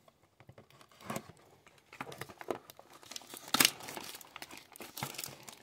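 A cardboard trading-card blaster box being handled and opened by hand: irregular crinkling, tearing and rustling with small taps, sparse at first and busier after about a second, with the sharpest snap about three and a half seconds in.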